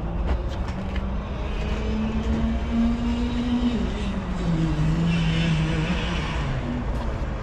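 Junior Rotax kart's 125cc two-stroke engine running at high revs. Its pitch climbs for about two seconds, drops a little before the halfway point and holds lower, over a low rumble.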